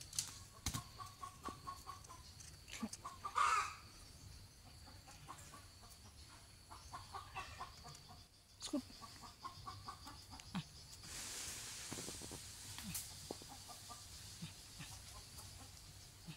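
Domestic chickens clucking in short runs, with a louder brief sound about three and a half seconds in.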